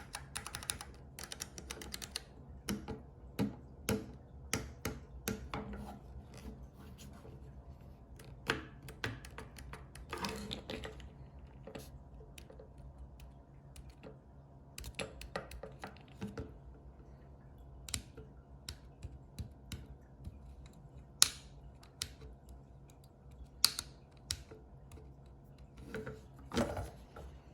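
Keyboard keys pressed one at a time and in quick runs, giving irregular sharp clicks over a faint hum. The keys are being tried for a key cap clearance problem; these are keys the owner finds don't work properly.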